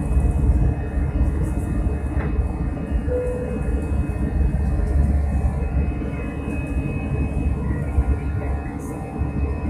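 Airbus A320 airliner rolling on the ground: a steady low rumble, with a faint steady engine whine on top.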